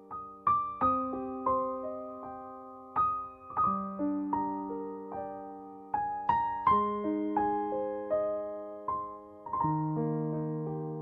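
Background music: solo piano playing slow, gentle chords and melody notes, each struck note ringing and fading.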